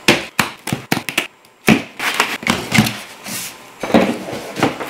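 Cardboard parts box being opened by hand: sharp clicks and snaps in the first second or so as the plastic packing straps come off, then scraping and rustling of cardboard as the lid is lifted, with a few more knocks near the end.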